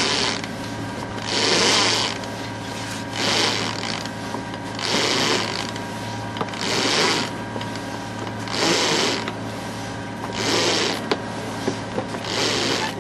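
Sea water rushing and splashing along a sailing yacht's hull in regular surges about every two seconds as she rides the swell, over the steady hum of her auxiliary engine. A few sharp clicks come near the end.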